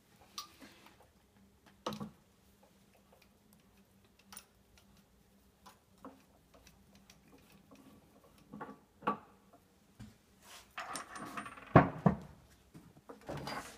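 Metal clicks and knocks of a steel chuck being handled on the spindle of a Habegger JH 102 watchmaker's lathe, with a louder clatter of metal parts knocking together near the end.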